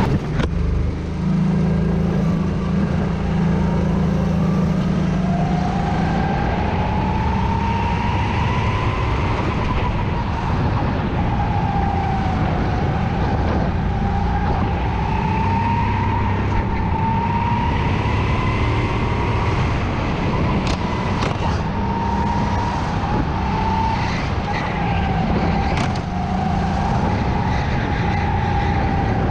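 Go-kart engine heard from the kart itself, running steadily at first and then pulling away about six seconds in. Its pitch rises and falls as the kart speeds up along the straights and eases off for the corners.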